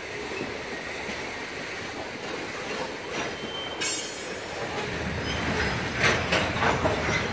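Freight train of covered hopper cars rolling past, its steel wheels rumbling steadily on the rails. A brief high wheel squeal comes about four seconds in, and near the end the wheel trucks clack over rail joints several times in quick succession.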